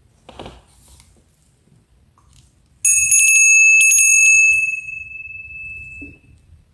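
Small brass hand bell rung a few times in quick succession, starting about three seconds in, giving one clear high ring with higher overtones that dies away over about two seconds. It ends with a light knock as the bell is set down on a table.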